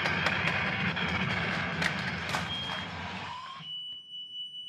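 Plugged-in electric guitar being smashed and ground against the floor: loud amplified crackle and buzzing through the amp, with many sharp clicks. The noise fades out a little past three seconds in, then a steady high-pitched tone holds for about a second.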